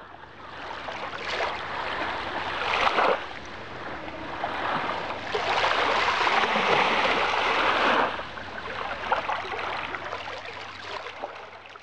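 Small Baltic Sea waves washing up onto a sandy beach, the sound of the water surging in twice, the second time longer and louder, then fading away near the end.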